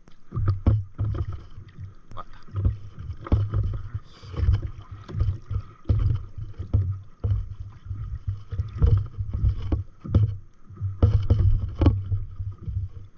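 Water slapping and lapping against the hull of an inflatable stand-up paddle board, with irregular knocks and low thumps.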